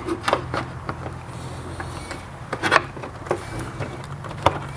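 Scattered clicks and knocks of parts being handled as the Jeep's air intake is refitted under the hood, loudest about two and a half seconds in, over a steady low hum.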